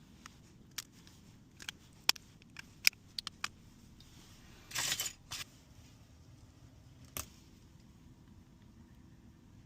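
Scattered small clicks and taps from handling a phone and small repair tools, with a short rustling scrape about five seconds in.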